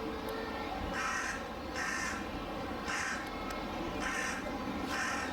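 A crow cawing five times, about a second apart, each caw a harsh, noisy call.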